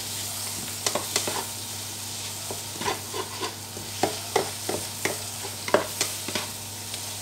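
Mustard greens and egg sizzling in a non-stick wok while a spatula stirs and scrapes the pan, with irregular clacks of the spatula against the metal over a steady frying hiss.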